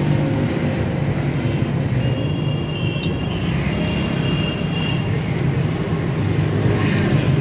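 Steady rumble of road traffic, with vehicle engines running close by. A faint high tone holds for about three seconds in the middle, and there is a single sharp click about three seconds in.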